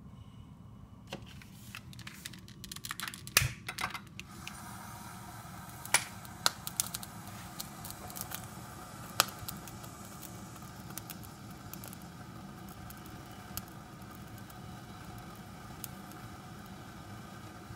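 A few clicks and taps, then from about four seconds in the steady hiss of a small gas burner alight in the firebox under a toy steam engine's boiler, with occasional sharp ticks.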